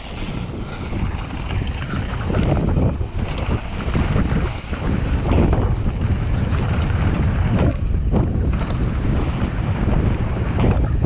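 Wind buffeting the camera microphone as a Cube Stereo mountain bike descends fast on a dry dirt and gravel trail, with tyre rumble and the occasional sharp click or rattle from the bike over the bumps. It gets louder over the first couple of seconds.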